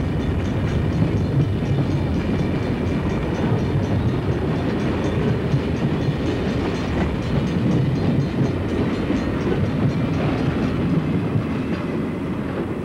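Southern Pacific freight cars rolling past at speed: a steady rumble of steel wheels on the rails with a clickety-clack over the rail joints. The noise eases a little near the end as the caboose goes by.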